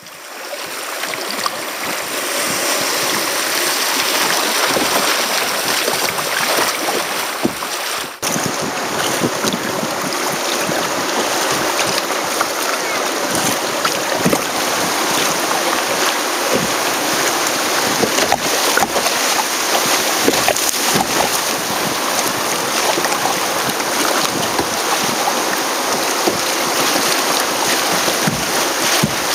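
Steady rush of river whitewater and water splashing against a sit-on-top kayak's bow, with wind buffeting a bow-mounted microphone. The sound cuts out for a moment about eight seconds in.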